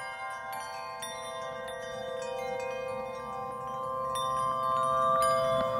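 Chime tones struck one after another and left ringing, overlapping into a shimmering chord that swells in level, over a faint low rumble.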